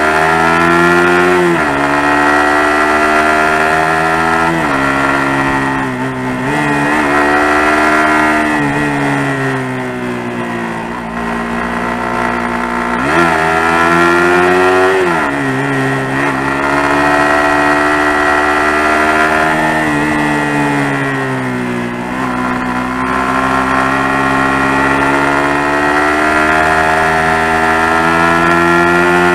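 Suzuki GSX-R150's single-cylinder four-stroke engine under way on a winding road. Its pitch climbs steadily, then drops sharply, several times over.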